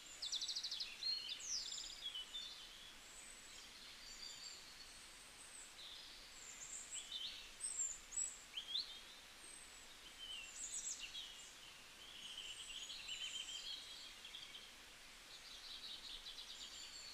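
Birds singing: a mix of short chirps, quick falling whistles and fast trills from several birds, over a faint hiss of outdoor background noise.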